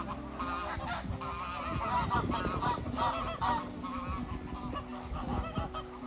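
A flock of domestic geese honking, many short calls repeating and overlapping.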